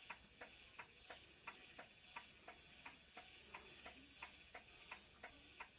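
Brass anniversary clock ticking rapidly and steadily, about three faint ticks a second. The owner says the ball pendulum is not turning and the clock has not been wound in 30 years, so he cannot explain the ticking.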